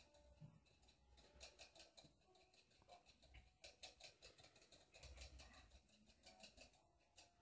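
Faint, quick ticking of a pet's metal water-bottle spout as the animal licks and drinks from it, coming in several short runs of rapid clicks.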